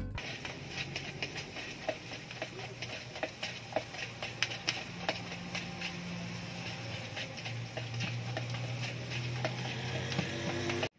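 Long-handled spoon stirring sweet corn kernels in a plastic bowl: many small irregular clicks and scrapes over a steady low hum, cutting off abruptly near the end.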